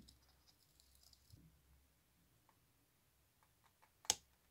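Faint scattered handling clicks, then one sharp snip about four seconds in as scissors cut through a rubber band.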